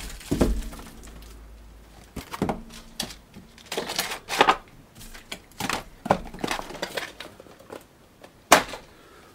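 Cardboard box being handled and a plastic bag wrapped around a pair of small speakers rustling and crinkling in irregular bursts, with a sharp crackle near the end.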